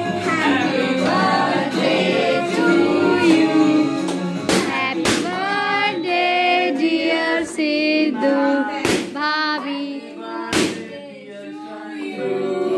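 Several voices singing a song together, with four sharp cracks cutting through the singing.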